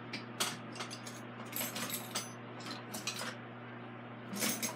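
Metal hand tools clinking and rattling as they are picked through, in irregular clusters of light metallic clicks, over a steady low hum.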